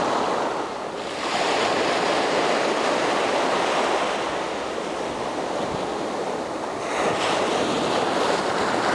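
Small waves breaking and washing up a sandy beach, the surf swelling louder about a second in and again near the end.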